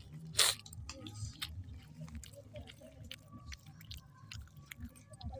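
Eating sounds: a person chewing a mouthful of rice and chicken curry, with many small clicks and one short louder noisy burst about half a second in.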